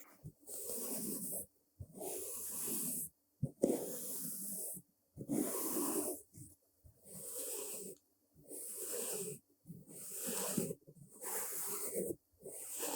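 Soft brush swept in slow, rhythmic strokes, about nine strokes of roughly a second each with short pauses between them, a soft swishing hiss.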